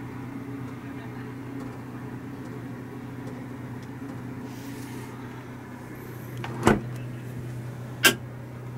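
Two sharp knocks about a second and a half apart near the end, over a steady low hum.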